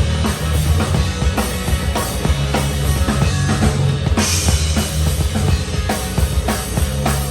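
Live rock band playing, with the drum kit to the fore: regular kick and snare hits over a steady bass line, and a cymbal crash about four seconds in.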